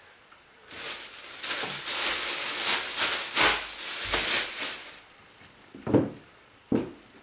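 Rustling and crinkling of clothes being handled and folded for packing, for a few seconds, followed by two or three short knocks.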